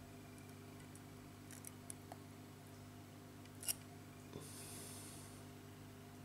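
Faint small clicks of tweezers touching the wire coils on a rebuildable atomizer deck, with one sharper click about three and a half seconds in and a brief faint hiss just after, over a low steady hum.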